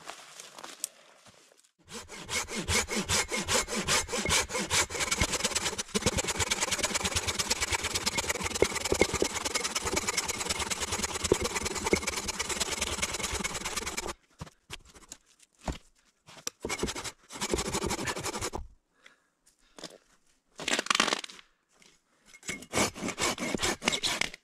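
Saw cutting wood in a long spell of steady, rapid strokes, then stopping and starting in a few shorter bursts.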